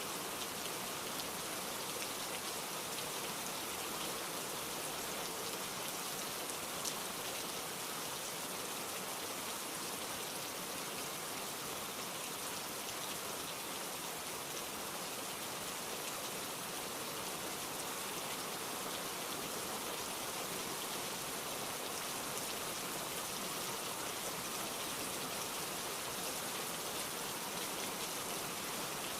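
Steady heavy rain falling, a dense hiss of drops with fine scattered pattering on surfaces and one slightly louder drop about seven seconds in.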